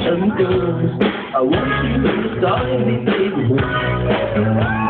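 Rock band playing live: a drum kit keeps a steady beat under keyboard and guitar, with a voice singing.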